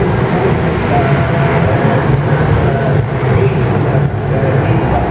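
Several pit bikes racing on a dirt track, their small single-cylinder engines revving up and down in a continuous din.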